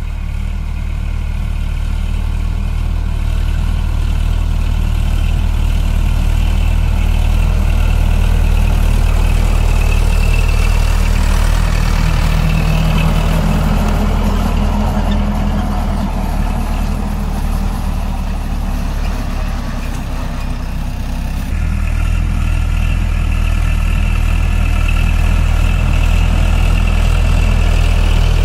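Sonalika tractor's diesel engine running steadily under load, with a shift in engine note about three-quarters of the way through.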